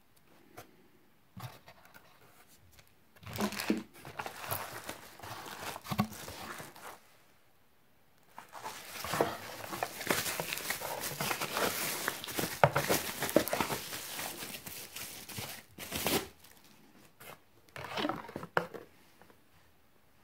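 Plastic wrapping and packing material crinkling and rustling as a boxed unit is unpacked from a cardboard carton. It comes in three stretches of handling, the longest in the middle, with a brief quiet between them.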